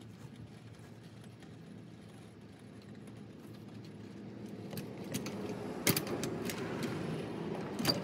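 Hand work on a car's front suspension: metal tools and parts clinking over a low steady hum, with two sharp metallic clanks about six seconds and about eight seconds in.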